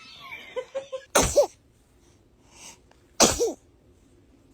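A newborn baby sneezing twice, about two seconds apart. Each sneeze is a sharp burst that ends in a tiny high squeak.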